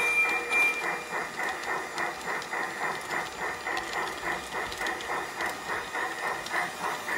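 Piko G-scale model steam tank locomotive running, with its sound module playing an even steam chuff, about three or four chuffs a second.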